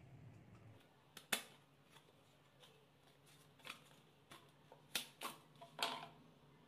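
Light clicks and scrapes of a smartwatch being pulled out of its cardboard box insert and handled, a few scattered early and a quick cluster of them about five to six seconds in.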